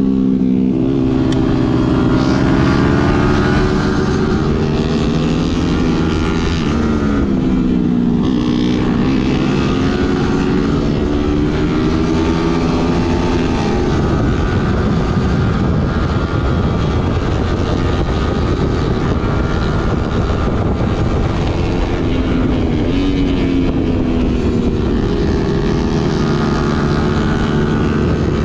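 Sport motorcycle engine heard from the rider's seat while riding, its pitch rising and falling several times with throttle and gear changes, over steady wind and road rush.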